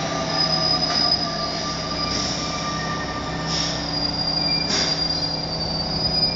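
Paris Métro Line 4 train squealing, several steady high-pitched tones held together over a rumble, with two short hisses about three and a half and five seconds in.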